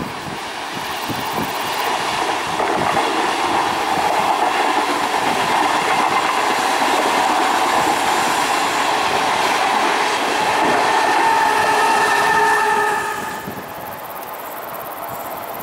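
Regional passenger train of green-and-white coaches running past on the rails. The noise builds over the first couple of seconds and holds steady, with a high whine joining in near the end. It drops off sharply about thirteen seconds in as the last coach goes by.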